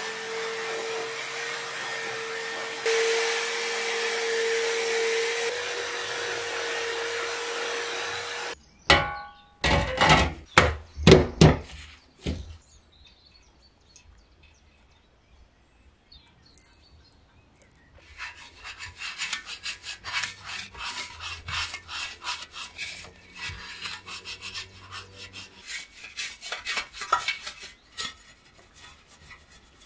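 Power drill spinning a wire brush against a rusty iron stove ring, a steady whine over grinding, stopping about eight seconds in. A few loud knocks follow, then a short quiet spell. From about the middle on, a stiff bristle brush scrubs the stove's metal body in quick strokes.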